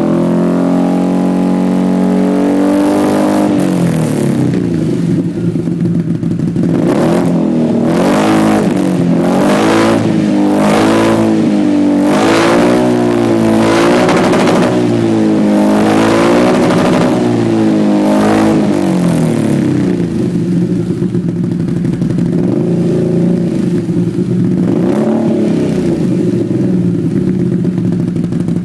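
Can-Am's engine idling, then revved over and over in short blips for about fifteen seconds, each rev rising and falling in pitch. It then settles back to a steady idle, with one more small blip near the end.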